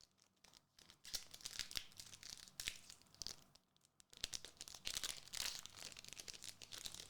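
A foil booster pack of Gundam Card Game cards being torn open and its wrapper crinkled, in two bouts of crackling rustle with a short lull between them.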